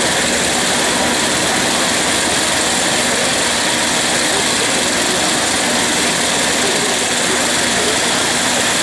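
Engine running steadily: a constant, even mechanical drone with hiss and no change in speed.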